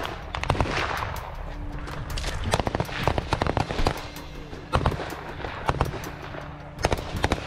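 Small-arms gunfire: single shots and short bursts cracking at irregular intervals, with a quick run of shots a few seconds in and another near the end.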